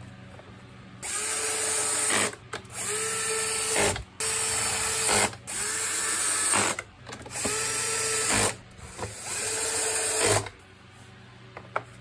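Cordless drill-driver run in about six short bursts, each about a second long and each spinning up with a rising whine before cutting off, as it works the screws of a vacuum cleaner's housing.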